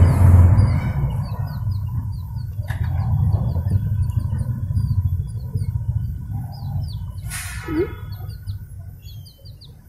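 Baby chicks peeping over and over in short, high, falling chirps. A low rumble runs underneath, louder at first, and there is a brief rustling noise about seven seconds in.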